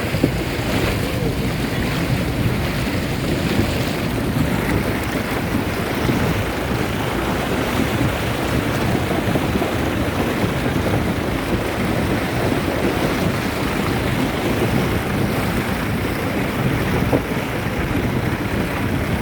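Wind rushing and buffeting over the microphone: a loud, steady rumbling noise with no pauses.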